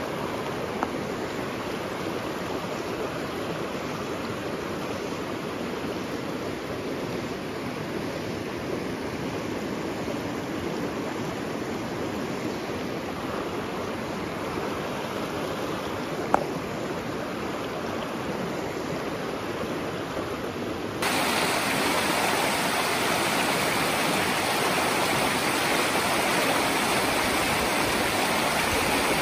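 River rapids rushing steadily over rocks, a constant wash of water. About two-thirds of the way in it turns suddenly louder and brighter, and a single sharp click sounds about halfway through.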